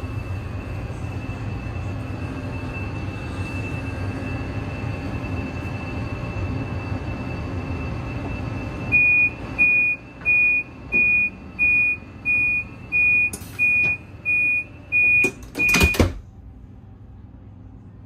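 CRH high-speed train's door-closing warning: about eleven short, high-pitched beeps, roughly one and a half a second, over a steady hum. The sliding plug door then shuts with a thud about sixteen seconds in, and the sound drops to a quiet hum.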